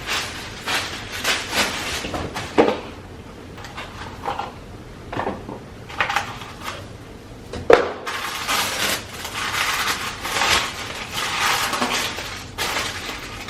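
Packaging being handled and opened: irregular rustling and crinkling with small clinks, and two sharp knocks about two and a half and seven and a half seconds in.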